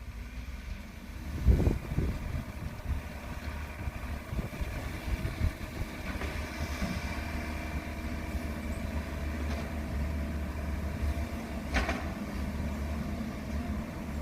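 Engine running steadily with a low rumble, with a few thumps about a second and a half in and a short knock near the end.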